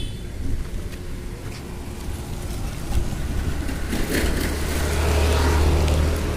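A continuous low rumble that grows louder about four seconds in and eases off near the end, with a few faint clicks as a key is worked in the lock of an electric bicycle's frame-mounted battery pack.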